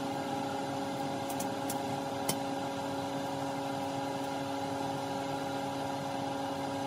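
Microwave oven running with a steady hum, heating two CDs. A few short sharp ticks come between about one and two and a half seconds in.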